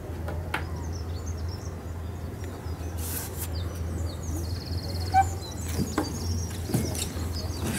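Outdoor ambience of birds chirping and calling, with a quick trill midway, over a steady low hum. A few sharp knocks and clicks come through, the loudest about five seconds in.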